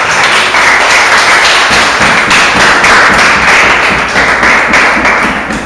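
A group of people clapping and applauding, a dense, even patter of many hands, dying away near the end.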